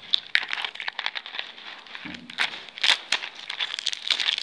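Clear cellophane wrapper on a small cardboard box of Orbit Drops candy crinkling and crackling irregularly as fingers pick at it and peel it off.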